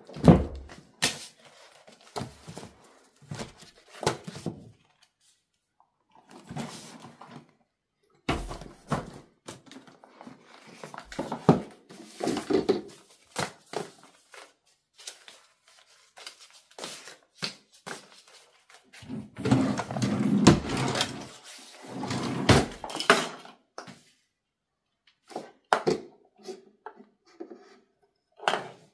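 Irregular thumps, knocks and rustling of a wardrobe being handled, with a denser stretch of knocking and rustling about two-thirds through.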